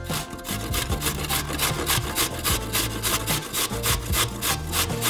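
Carrot being grated on a stainless steel box grater: rhythmic rasping strokes, about three to four a second.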